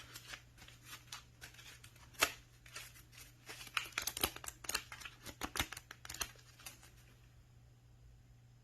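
Paper banknotes being counted by hand: a run of crisp flicks and snaps as each note is thumbed off the stack, coming quicker in the middle and stopping a little before the end, leaving a faint low hum.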